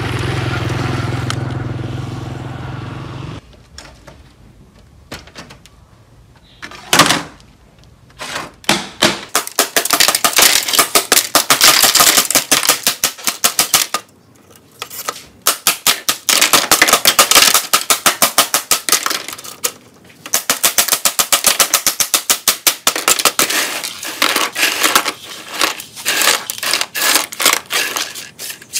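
A motor running steadily for a few seconds, then long runs of rapid crackling clicks and scrapes as shattered glass is scraped off a broken LCD monitor panel and the shards are swept off a tabletop with a straw broom.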